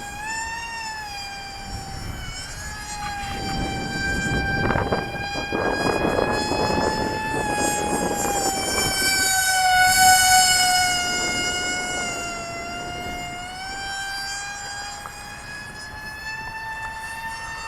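Electric motor and propeller of an RC flying wing whining in flight. It grows louder to a peak about ten seconds in as the plane comes closer, then fades away. A low rumble of wind on the microphone comes in the middle.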